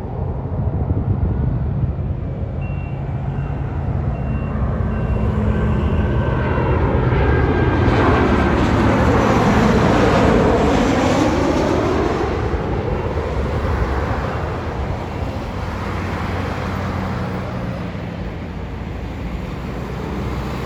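Boeing 737-700 airliner with CFM56 turbofans passing by on landing approach: steady jet roar that builds to its loudest about halfway through with a sweeping, phasing whoosh, then fades.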